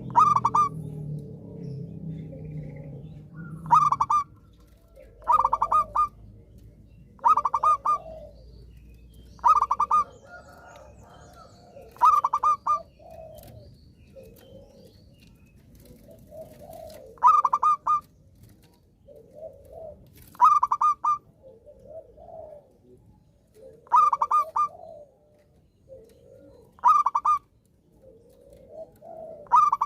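Zebra dove (perkutut) singing, repeating its short trilled coo phrase about every two to three seconds, with softer, lower coos in between.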